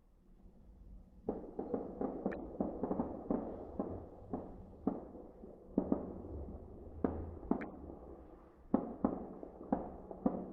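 A string of firecrackers going off: irregular sharp bangs, a few a second, starting about a second in and running on, over a low background rumble.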